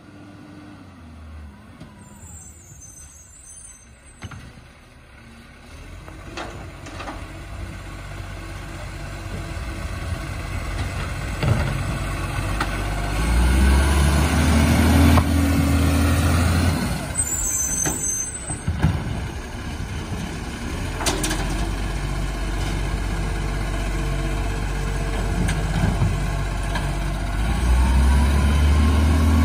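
Iveco side-loader garbage truck's diesel engine growing louder as it approaches and pulls up, with air brake hisses and a few clunks. Twice the engine runs up and holds a steady higher pitch while it drives the hydraulic side arm lifting and emptying the wheelie bins, about halfway through and again near the end.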